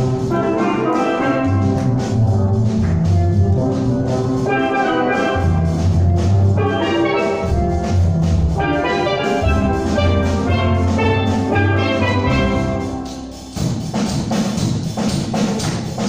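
Steel pan ensemble playing live: bright melody pans over booming bass pans, with drum-kit percussion. About thirteen seconds in the pans break off briefly and a busier run of sharp percussive strikes takes over.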